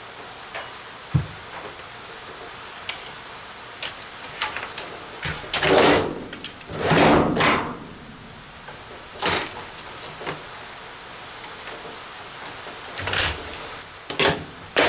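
Metal and circuit-board parts of a large Dell monitor being pulled apart by hand. There is a low thump about a second in, scattered clicks and knocks, and two longer, loud scraping slides around the middle.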